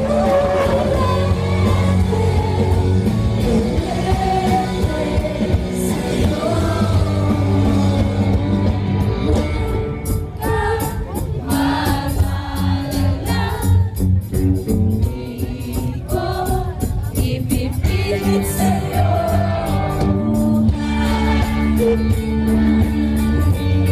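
Live band music with singing, amplified and heard from inside the concert crowd. The bass and instruments thin out a little under halfway, leaving mostly voices, then the full band comes back in near the end.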